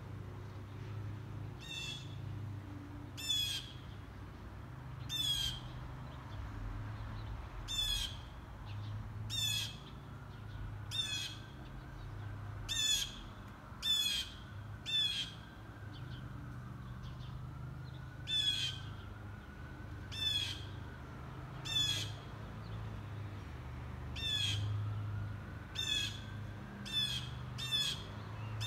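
A hawk calling over and over: short, high, harsh cries, one every one to two seconds, over a low steady rumble.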